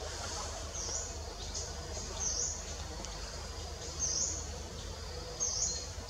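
An animal's short, thin, high-pitched chirps, each a quick dip and rise in pitch, about six of them at irregular gaps of roughly a second, over a steady low rumble.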